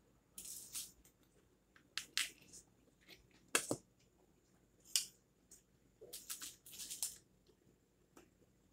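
A scatter of short, faint crackles and crinkles, about six of them, with a louder one about three and a half seconds in: a plastic sauce cup being opened and paper wrappers handled, and crunching bites of a crispy rolled chicken taco.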